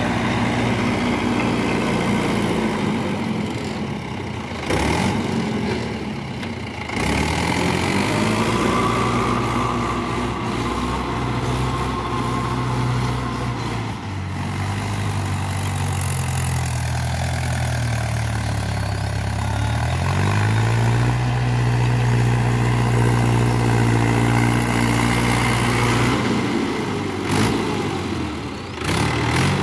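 Mahindra 575 DI XP Plus tractor's four-cylinder diesel engine running steadily under load as it drives a rotavator tilling soil. Its note sags for a few seconds about two-thirds of the way through, then picks back up.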